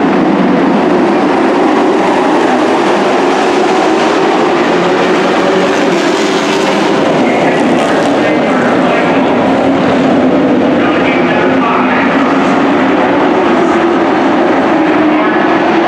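A field of dirt-track race trucks racing, their engines overlapping in a loud, steady drone.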